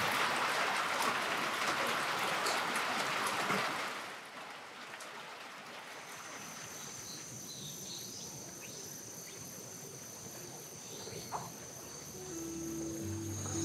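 Steady rain falling and running off a tiled roof, which fades out about four seconds in. It leaves a quieter outdoor background of insects with a steady high-pitched trill, and music comes in near the end.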